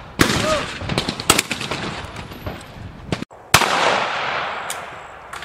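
Shotgun shots: a loud blast just after the start and another about three and a half seconds in, each with a long fading echo, and a fainter shot in between.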